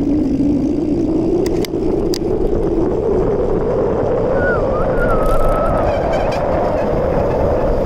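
A bicycle coasting down a steep road: wind buffets the microphone, and a tyre hum rises steadily in pitch as the bike picks up speed on the descent.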